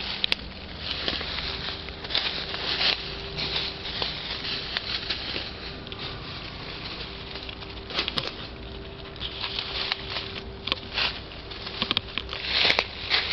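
Irregular close rustling and crackling with a few sharp clicks, over a faint steady hum.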